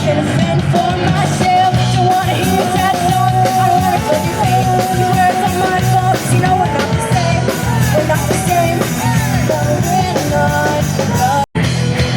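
Rock music with a sung vocal over a steady beat, cutting out for an instant shortly before the end.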